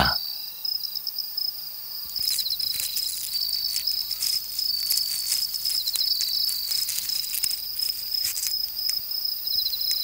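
Night insect chorus: a steady high-pitched chirring with pulsing trills, with faint scattered ticks and rustles.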